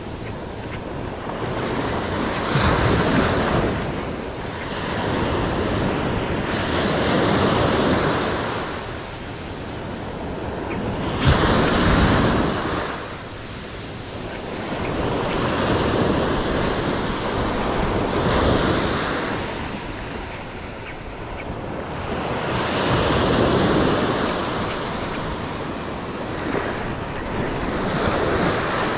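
Small Gulf surf waves breaking and washing up the sand, the sound swelling and fading every four to five seconds as each wave runs in, the sharpest surge about eleven seconds in. Wind buffets the microphone throughout.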